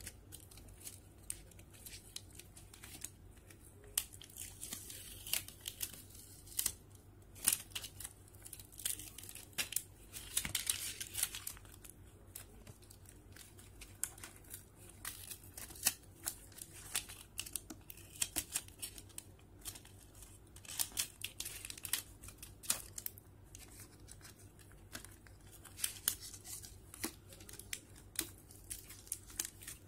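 Clear plastic film and adhesive tape being peeled off a smartphone's screen assembly and crinkled by hand. It gives irregular sharp crackles and clicks, with a longer tearing rasp about ten seconds in.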